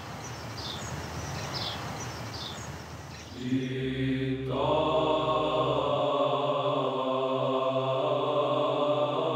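Orthodox liturgical chant: voices holding long, steady notes over a sustained drone, starting about three and a half seconds in. Before it, an outdoor hiss with faint short chirps repeating a little more often than once a second.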